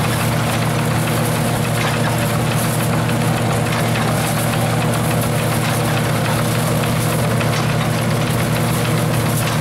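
Vintage belt-driven threshing machine running at a steady pace: a continuous low drone with a dense mechanical rattle over it.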